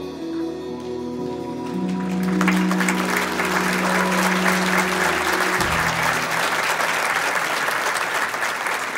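Theatre audience applauding, the clapping swelling about two seconds in and carrying on, over music with long held notes that stops about five and a half seconds in.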